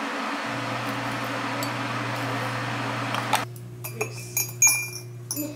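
A steady rushing noise that cuts off abruptly about three and a half seconds in. Then a metal tea scoop and mesh tea infuser clink several times against a ceramic mug, the loudest clink a little after that.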